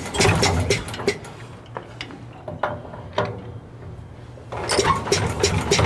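Metal clinking and tapping as hands work valves and fittings on an old cast-iron engine, with a steady low hum underneath. The clinks come thick in the first second and again for the last second or so, with a few single taps in between.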